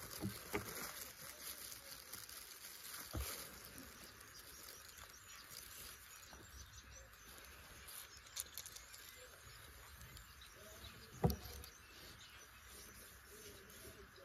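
Faint outdoor background hiss with a few light knocks; the loudest comes about eleven seconds in.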